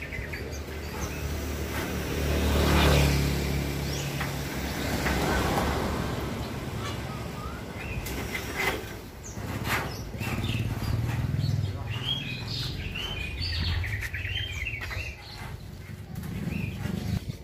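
A motor vehicle passes by, its engine rumble swelling and fading about two to five seconds in. Scattered clanks come from steel stands and a corrugated zinc roof sheet being handled, and birds chirp near the end.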